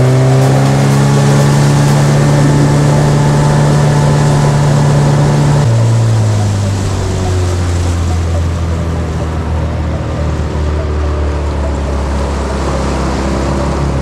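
Outboard motorboat engine running steadily under way, with water rushing past the hull. Its note drops abruptly to a lower pitch about six seconds in.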